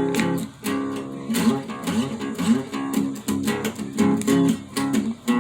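Acoustic guitar strummed in a steady rhythm, playing the accompaniment of a country song between sung lines.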